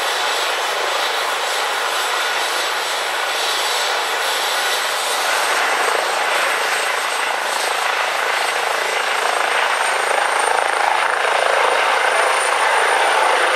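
Eurocopter EC135 air-ambulance helicopter running on the ground, its turbines and rotor building power for lift-off. A high whine rises slowly in pitch, and the noise swells toward the end as the downwash picks up.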